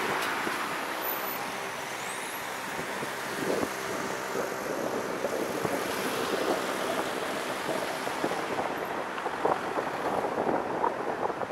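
Car driving on city streets: steady road and tyre noise with a low engine hum, and wind buffeting the microphone, which is held on the car's roof.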